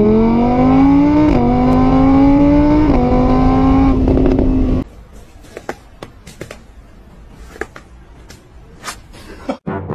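Revving motorbike-style engine sound that climbs in pitch, drops back twice as if shifting up through the gears, and cuts off abruptly about five seconds in. Scattered faint clicks and ticks follow.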